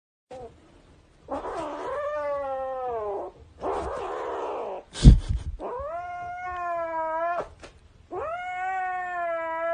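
Domestic cat caterwauling: three long drawn-out yowls of about two seconds each, the first falling in pitch. Between the first two yowls there is a rough breathy noise, and a loud knock about five seconds in is the loudest sound.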